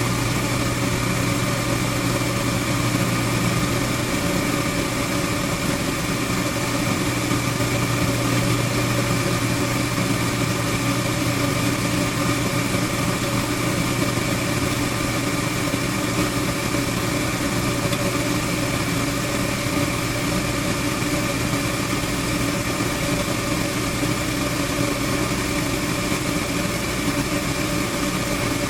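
Goodman gas furnace running with its burners lit: a steady mechanical hum from its motor over the rushing of the burners, unchanging throughout.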